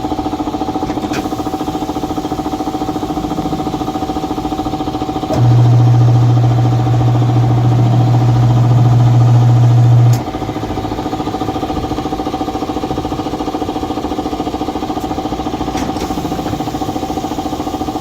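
A machine drones steadily with a constant hum; about five seconds in, a much louder low electric-motor hum starts abruptly, holds steady for about five seconds, then cuts off. This is the tire changer's turntable motor being run after the new air distributor was installed.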